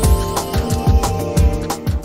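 Background music with a steady drum beat and held instrumental tones.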